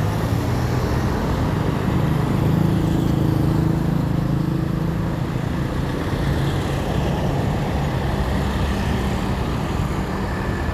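Roadside traffic: a motor vehicle's engine running with a low steady hum over the wash of passing traffic, swelling louder about two to five seconds in and then easing off.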